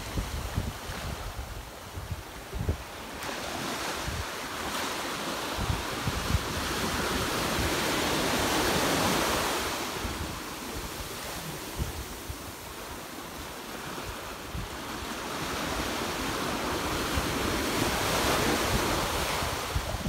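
Sea surf on a sandy beach: waves breaking and washing up the shore, the wash swelling to a peak twice. Wind buffets the microphone.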